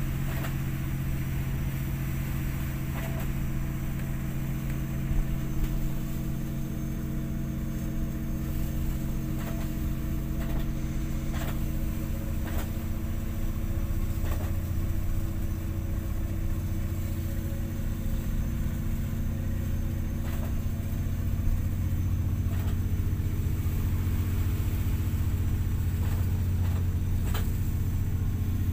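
A vessel's engine running steadily under way, heard inside the wheelhouse as a low hum; its main tone shifts lower about halfway through. Occasional light clicks and knocks sound over it.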